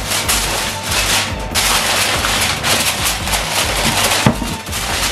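Aluminium foil crinkling and crackling as hands crimp it down tightly around the rim of a baking dish to seal it, with background music underneath.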